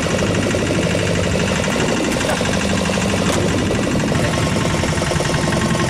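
A small fishing boat's engine running steadily with a fast, even beat.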